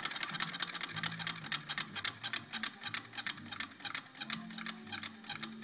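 Vintage Wilesco toy steam engine running: a rapid, even ticking from its small cylinder and flywheel, several beats a second, with a faint low hum underneath.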